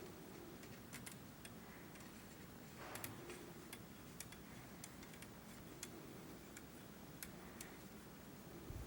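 Faint scattered small clicks and ticks at irregular intervals over quiet room noise.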